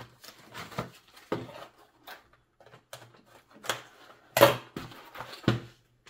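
Handling noise: plastic disc golf discs and their packaging being moved about, a scatter of light knocks and rustles with a sharper knock about four and a half seconds in.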